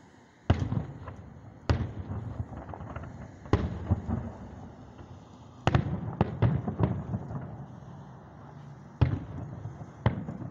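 Aerial firework shells bursting: a string of sharp booms, about eight in ten seconds with three close together around the six-second mark, each trailing off in a rumbling crackle.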